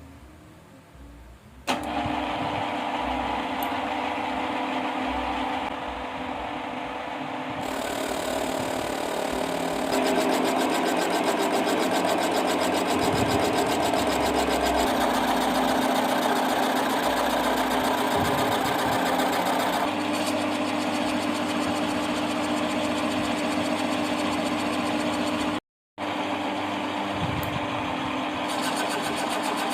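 Homemade ball mill driven by a 12 V RS775 DC motor through a GT2 timing belt, switched on about two seconds in and running steadily with a steady hum. Its sound steps up and shifts a few times along the way, and it breaks off briefly near the end before carrying on.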